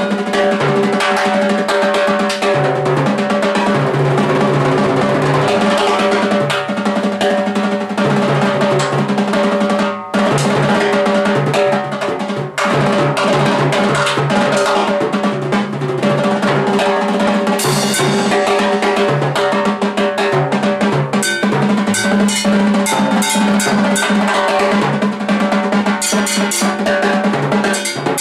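Latin percussion jam led by timbales struck with sticks, with cymbal and jam block hits, over a bass line. The playing is dense and continuous, with brief breaks about 10 and 12.5 seconds in.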